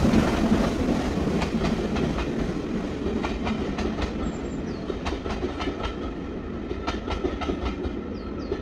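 Steam train passing: loudest at the start as the locomotive goes by, then fading as the carriages roll past, their wheels clicking over the rail joints.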